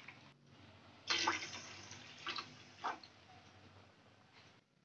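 Water poured into a steel pot of sugar, splashing: one longer pour about a second in that tails off, then two brief splashes.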